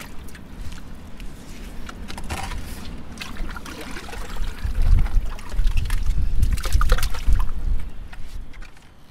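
Shovel scraping and scooping wet mud and hands sloshing through muddy groundwater in a flooded privy pit, with trickling and splashing. A heavy low rumble swells through the middle and fades near the end.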